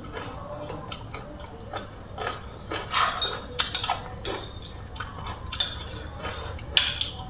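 Metal spoon and fork clinking and scraping against a plate while scooping food, in irregular clatters, with one sharp clink near the end.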